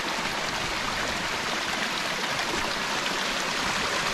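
Steady rushing hiss with no distinct events, like running water.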